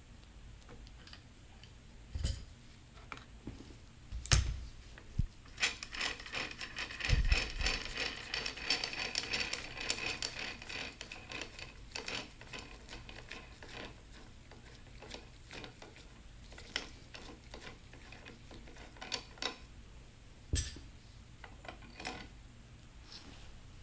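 Wrench being worked to loosen a makeshift bearing-press setup on a transmission part. A run of rapid ratcheting clicks about 6 to 12 seconds in, with a few separate metal knocks before and after.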